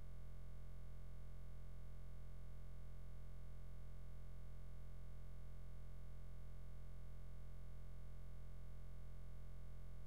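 A steady low hum that holds unchanged throughout.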